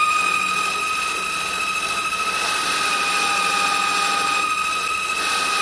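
Vevor 8x14 mini lathe running, its brushed DC motor giving a steady high-pitched howl. A fainter second whine joins for about a second and a half midway.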